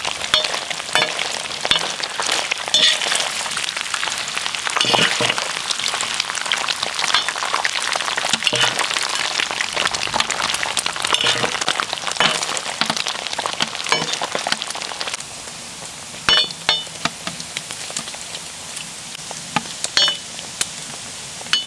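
Pieces of lamb fat-tail frying on a hot saj, sizzling and crackling steadily with many small spattering pops as the fat renders into cracklings. The sizzle gets somewhat quieter about 15 seconds in, with a few sharp clacks near the end.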